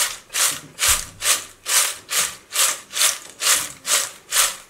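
Crisp fried cassava chips tossed in a glass bowl, rustling and rattling against each other and the glass in an even rhythm of about three shakes a second, as they are coated in chilli spice mix.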